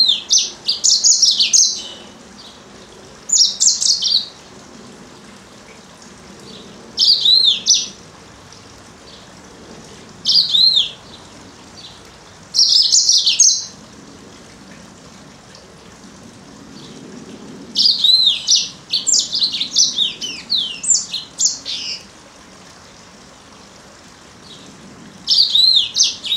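Female yellow-fronted canary singing in short bursts of rapid high chirps and down-slurred notes, separated by pauses of a few seconds, with a longer run of song about two-thirds of the way through.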